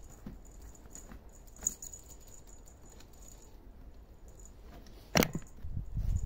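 Kittens playing among plastic toy balls and a crinkly plastic sheet: faint scattered rattles and clicks, then a loud thump about five seconds in followed by louder rustling as a kitten jumps into the pile.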